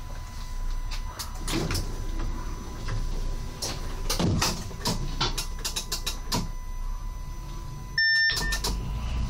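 Cab of an SWEG NE81 railcar standing still: a steady low hum with a thin steady high tone, repeated clicks and knocks, and a short sharp electronic beep about eight seconds in.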